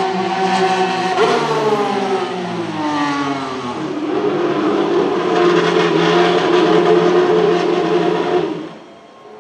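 McLaren MCL34 Formula 1 car's Renault E-Tech 19 1.6-litre turbocharged V6 hybrid power unit. Its note jumps about a second in, then falls steadily in pitch over a couple of seconds as the car goes by; after that the engine holds a steady, loud note with the car stationary in the pit box, and fades out near the end.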